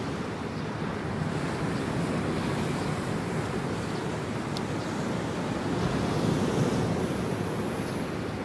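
Low surf washing steadily onto a sandy beach, a continuous rush of breaking waves, with some wind on the microphone.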